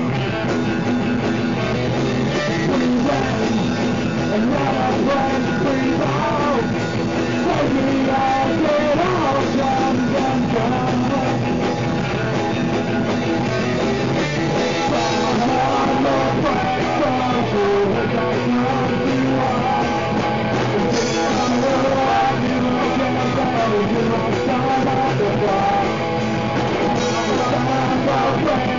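Punk rock song: a band playing with singing over guitar.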